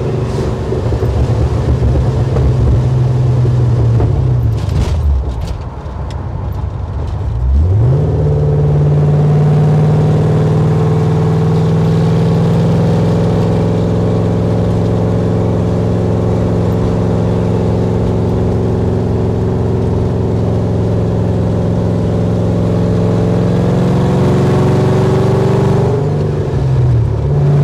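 LSX V8 of a 1968 Camaro SS running through a 2.5-inch stainless steel exhaust, heard from the cabin while driving. The engine note falls about four seconds in, climbs quickly about seven seconds in, then holds a steady cruise, dipping briefly near the end before picking up again.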